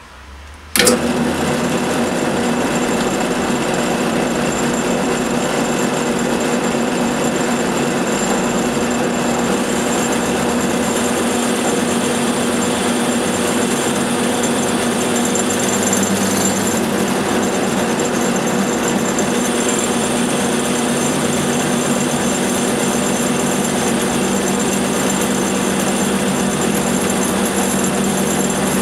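Benchtop drill press switched on with a sharp click about a second in, then its motor and spindle running steadily while a counterbore is fed slowly into a knife blade to cut a bearing pocket.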